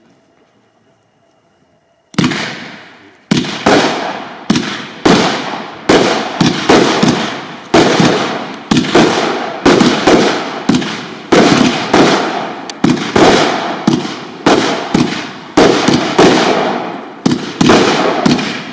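Ultra Nordlicht firework cake firing its shots in quick succession, about two seconds in, after a short quiet. Each shot is a sharp bang with a fading tail, coming roughly one to two per second.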